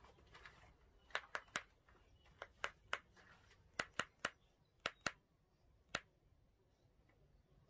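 About a dozen sharp, dry clicks in quick pairs and triplets over some five seconds: a screech owl snapping its bill, a defensive display.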